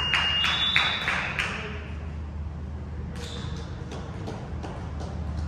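Basketball being bounced and sneakers thudding and squeaking on a hardwood gym floor, echoing in a large hall; the hits come quickly in the first second and a half, with two high sneaker squeaks, then thin out. A steady low hum runs underneath.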